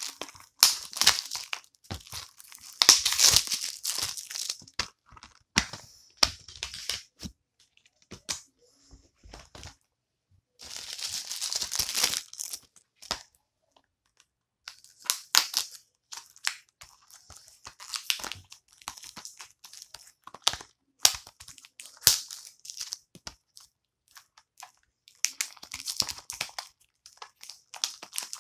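A mailed package being torn open and handled by hand: irregular crinkling and tearing of packaging in bursts, with a few quiet pauses of a couple of seconds between them.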